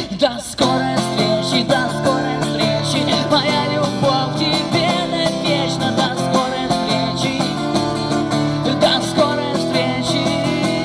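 Acoustic guitar strummed by a street musician, playing the accompaniment of a pop-rock song between sung lines.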